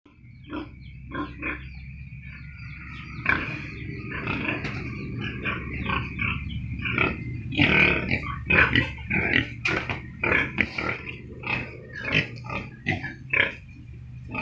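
A pen of young pigs grunting, a dense run of short, irregular calls that gets busier and louder about three seconds in. A steady high whine and a low hum run underneath.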